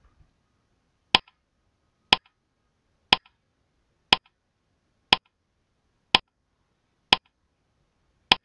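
Countdown timer sound effect: a sharp clock-like tick once a second, eight ticks in all, with silence between them.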